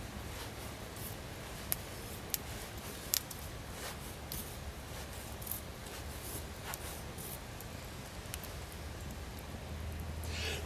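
ESEE Laser Strike knife carving a feather stick: the blade shaving thin curls down a dry stick in short scraping strokes, with a louder stroke at the very end.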